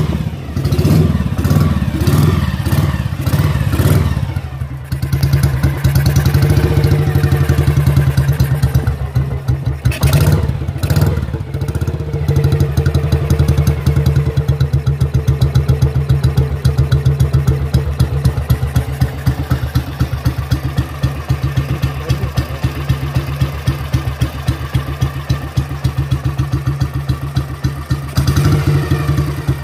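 Kawasaki 250 Meguro SG's single-cylinder four-stroke engine running just after starting, now that the bike has been repaired. It runs unevenly for the first few seconds, then settles into a steady idle with an even beat.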